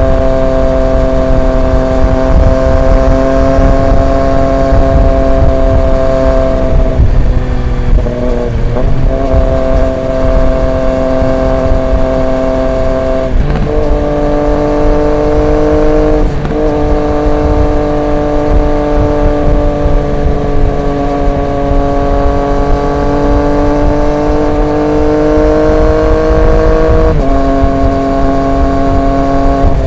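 Triumph Street Triple 765 RX's inline three-cylinder engine running at steady cruising revs through an SC Project S1 exhaust, heard from on the bike. The engine note drifts slowly, breaks briefly about 7 seconds in, steps down in pitch about 13 seconds in and back up near the end.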